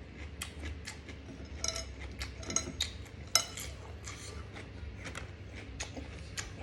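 Eating at a table: scattered light clicks and clinks of cutlery against a plate.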